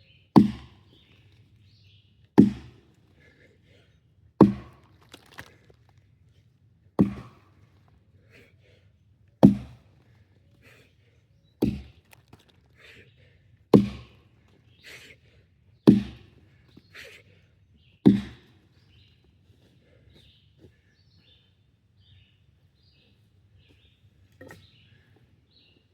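Axe chopping wood: nine heavy strikes, about one every two seconds, that stop about two-thirds of the way through.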